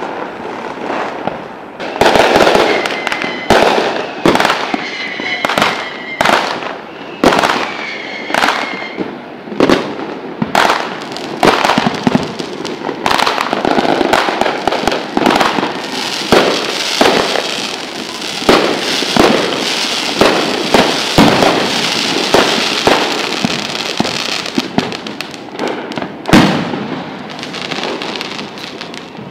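Big aerial fireworks display: shells bursting in a rapid, continuous barrage of sharp booms, with crackle between the bangs.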